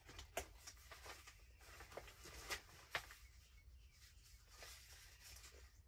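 Faint rustling and a few light taps of paper being handled and sorted, over a low steady hum.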